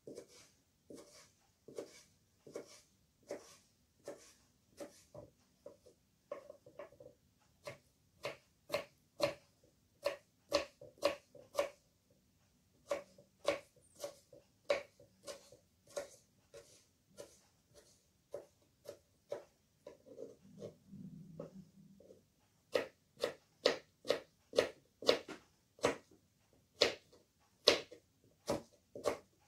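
Kitchen knife chopping peeled raw potatoes on a cutting board: a steady run of sharp knocks, about two to three a second, each time the blade strikes the board, growing louder near the end as she dices.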